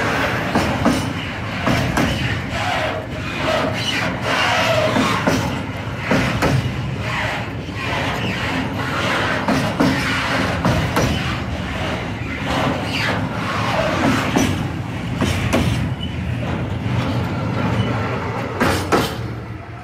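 Empty Sggnss-XL container flat wagons rolling slowly past at close range, their wheels clattering and knocking over the rail joints, with a few short wheel squeals. The sound falls away near the end as the last wagon passes.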